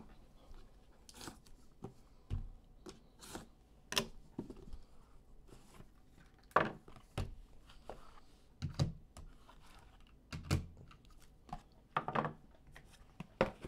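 Scattered light knocks, taps and brief rustles from handling a cardboard box of trading cards: the lidded box is lifted and opened, and card packs and plastic card cases are set down on a table.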